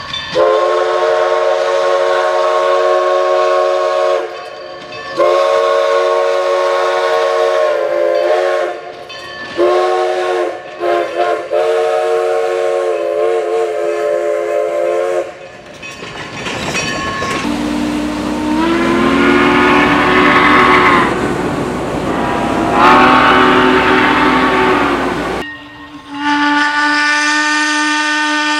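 A locomotive's multi-tone air horn sounds two long blasts, a short one and a long one, the pattern used at grade crossings. Then a steam whistle blows twice, its pitch sliding up as each blast opens. Near the end a steady, different-toned whistle follows.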